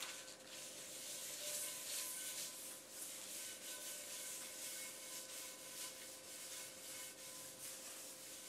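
Paper coffee filter rubbing grapeseed oil over the bare cast iron of a Wagner skillet: a faint, uneven scratchy wiping that swells and fades with each stroke.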